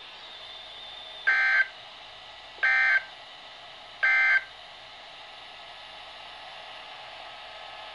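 Emergency Alert System end-of-message signal: three short bursts of digital data tones, about a second and a half apart, over a steady hiss. They mark the end of the alert broadcast.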